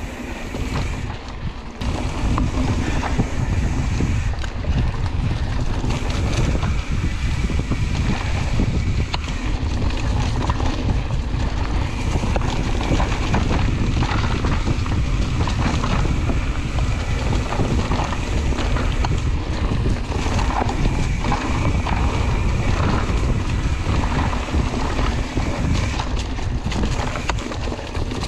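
Wind buffeting the microphone of a camera on a mountain bike riding fast along a cross-country dirt trail, a steady rumble with tyre and trail clatter underneath.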